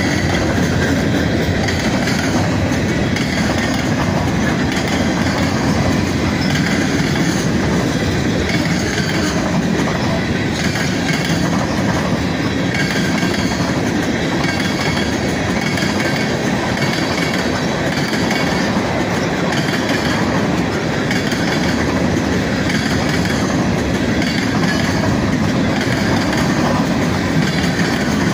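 Freight cars (covered hoppers, boxcars and tank cars) pounding past over a road crossing at speed: a loud, steady rumble with the wheels clattering in an even rhythm about once a second.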